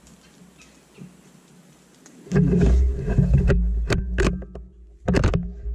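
Quiet woods, then about two seconds in a sudden loud rumbling handling noise and a run of sharp knocks as the rifle-mounted camera is swung and jostled.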